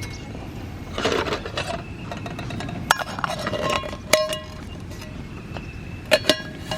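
Light metal clinks of camp cookware or utensils, several sharp knocks that each ring briefly, the last two close together near the end. A rustling scrape comes about a second in, over a steady low background hiss.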